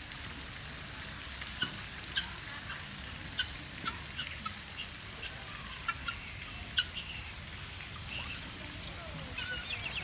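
Helmeted guineafowl calling: a string of short, sharp calls at irregular intervals, a dozen or so over several seconds.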